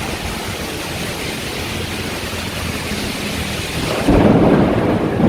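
Torrential tropical rain pouring down in a steady hiss, with a sudden louder low rumble breaking in about four seconds in.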